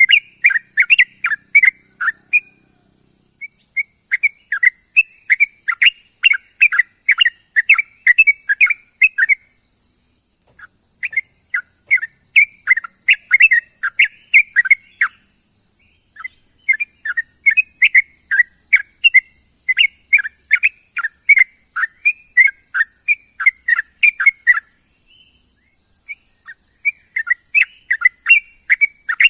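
Yellow-vented bulbul (trucuk) calling, a morning call used to draw other birds in. It gives bouts of quick bubbling chirps, several a second, broken by short pauses, over a steady high hiss.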